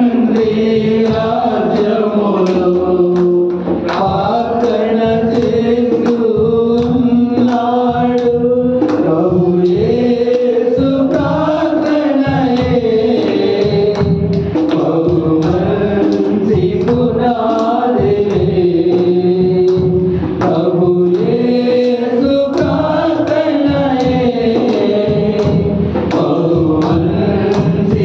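A man singing a Telugu Christian devotional song into a microphone: long held notes that glide slowly from pitch to pitch, over a steady beat.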